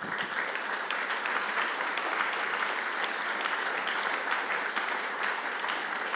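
Audience applauding: many hands clapping at once, starting as the speech breaks off and holding steady.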